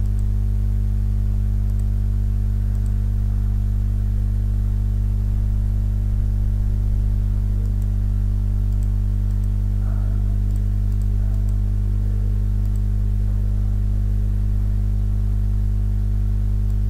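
Steady electrical hum from the recording setup, a low mains buzz with many even overtones, unchanging in level. A few faint clicks sound over it.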